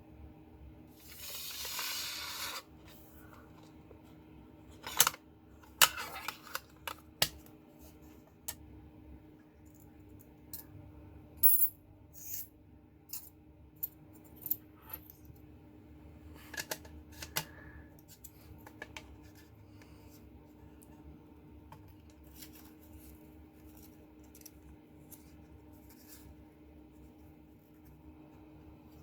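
Small metal razor parts clicking and clinking as they are handled, in sharp separate ticks that come thickly for the first two-thirds and thin out later, after a brief hiss about a second in.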